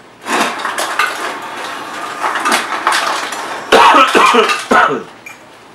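A spoon scraping and clattering against a plastic baby-food jar and high-chair tray during spoon-feeding. The loudest clatter comes about four seconds in.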